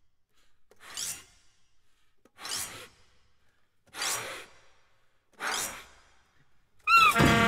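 Saxophone breath tones: air blown through the instrument without a note, four breathy swells about a second and a half apart, each brightening as it goes. Near the end the ensemble comes in loudly with sustained pitched notes, one of them bending in pitch.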